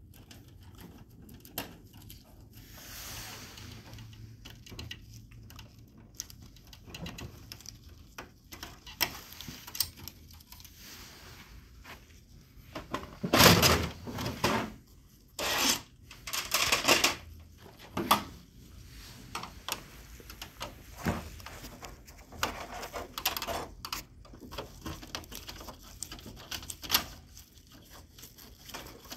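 Scattered clicks, knocks and scrapes of gloved hands and a screwdriver working the plastic and metal parts inside the rear of an HP LaserJet 4001 printer while taking out its fuser. A run of louder knocks and rustles comes in the middle.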